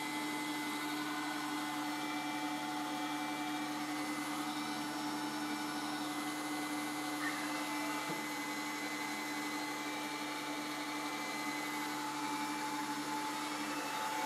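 Eufy Clean X9 Pro robot vacuum running: a steady motor hum with a few constant whining tones over a noise haze.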